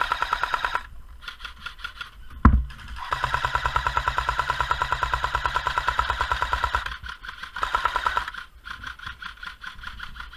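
A&K PKM airsoft electric machine gun firing full-auto bursts, its motor and gearbox cycling rapidly: a short burst at the start, one long burst of about four seconds in the middle, and a short one near 8 s. A single sharp knock comes about 2.5 s in.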